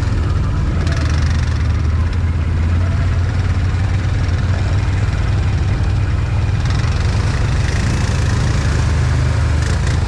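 Can-Am Outlander 1000 ATV's V-twin engine running steadily at low speed as it rolls through mud, with a rushing, splashy hiss joining near the end as it reaches water.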